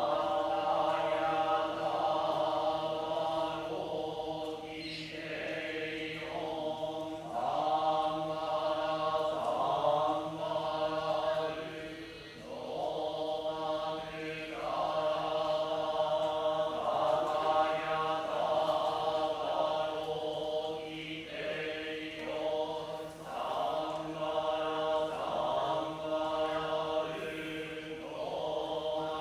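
Buddhist monks chanting a sutra in unison, in long sung phrases broken by brief pauses every few seconds.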